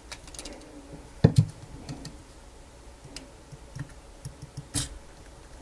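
Clicks and knocks of a wiper drive assembly and test leads being handled on a workbench, the loudest knock about a second in and another near the end, with smaller ticks between. A faint steady hum runs underneath.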